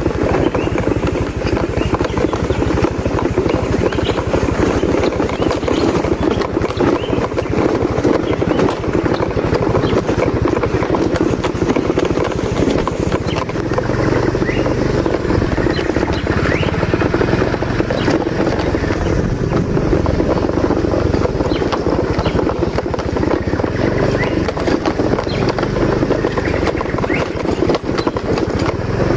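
A small engine running steadily, with a stronger low hum from about halfway through.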